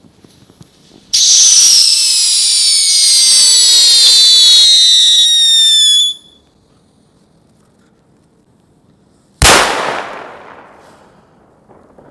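Whistling firecracker going off: a loud, high whistle whose pitch slowly falls runs for about five seconds and cuts off abruptly. A few seconds of quiet follow, then a single sharp bang that dies away over a second or so.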